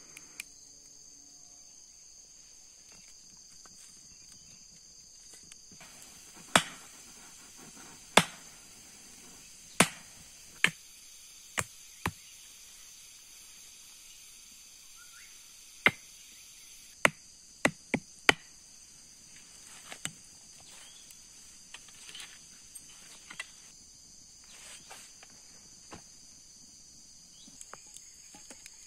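Sharp strikes of a hand tool on wood, about a dozen in uneven groups through the first two-thirds, over a steady high chirring of crickets and other insects. Fainter small clicks follow.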